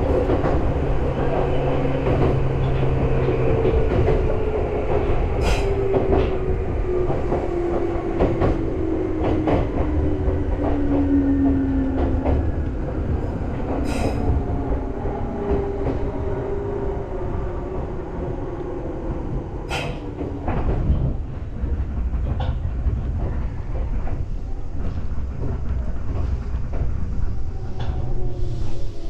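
Electric train heard from inside the driver's cab: motor whine and wheels running on the rails, with occasional sharp clacks. The whine falls slowly in pitch as the train slows, and falls again as it nears a station at the end.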